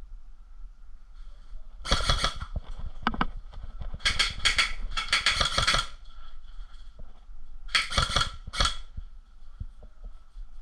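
Airsoft guns firing several short bursts of rapid automatic fire, each lasting about half a second to a second: one about two seconds in, a longer run from about four to six seconds, and another near eight seconds.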